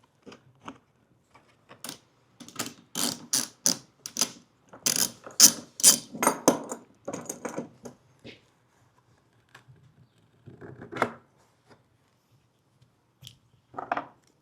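Hand-tool work on metal: bursts of clicking from a socket ratchet and clatter of metal parts, in quick irregular runs through the first half and again briefly near the end.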